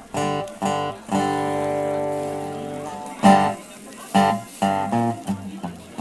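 Guitar strumming chords at the start of a song: a few short strums, then one chord left ringing for about two seconds, a loud strum, and lighter, quicker strums near the end.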